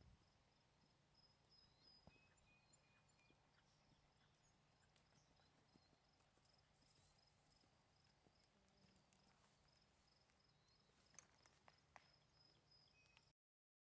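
Very faint hoofbeats of a paint horse moving over a sand arena. All sound cuts off suddenly shortly before the end.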